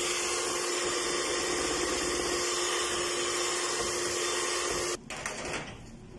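Electric hand mixer running steadily with a constant whine, its beaters whisking cake batter in a bowl. It switches off abruptly about five seconds in, followed by a few light knocks.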